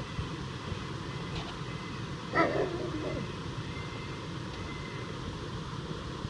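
Steady rush of creek water spilling over a small weir, with one short, loud animal call about two seconds in.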